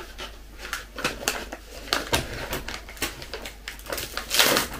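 Crinkling and rustling of a plastic snack packet being handled, in a run of irregular small crackles. There is a louder, denser burst of crinkling near the end as the packet is worked open.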